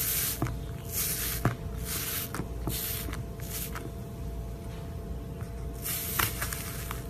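Iceberg slime being pressed and squished by hand: its hardened top crust crackles and the soft slime beneath squelches, in repeated bursts of hiss with a few sharp pops. A steady low hum runs underneath.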